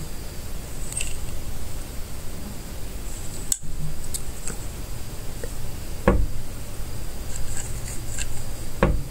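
Small plastic clicks and taps as a capsule Plarail toy locomotive of Boco is turned over in the fingers, with two louder knocks, about six seconds in and near the end.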